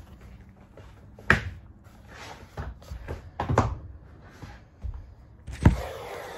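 A series of knocks and thumps, the loudest near the end as the phone is grabbed, followed by a rustle of handling.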